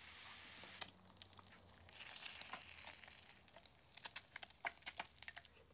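Faint frying in a pan: a soft sizzling hiss, with scattered sharp crackles that grow thicker about four seconds in.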